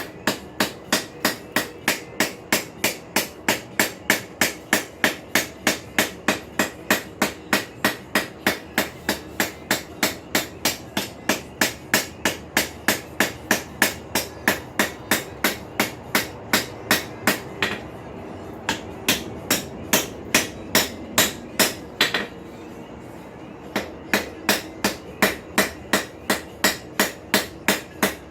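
Small cross peen hammer striking hot steel on an anvil, about three blows a second, with a steady ring under the strikes and two short pauses near the end. The peen's corner is texturing the head of a snake forged from a farrier's rasp.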